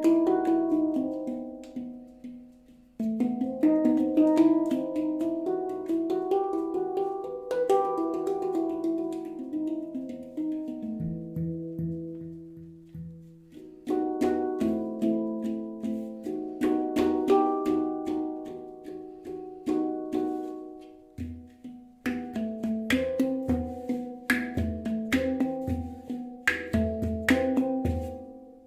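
Handpan tuned to an E Romanian Hijaz scale, played with the fingers: ringing steel notes and quick taps in melodic phrases, starting up again after short pauses about three, fourteen and twenty-two seconds in, with deeper notes thumping underneath in the later part.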